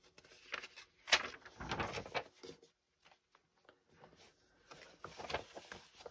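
Glossy magazine pages being turned and handled: a burst of paper rustling and crackling about a second in, with one sharp snap, then more rustling around five seconds in.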